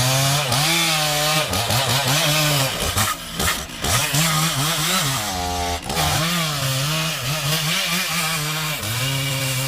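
Stihl MS660 two-stroke chainsaw running under load while cutting through a large tree trunk, its engine pitch repeatedly dipping and climbing back up about once a second.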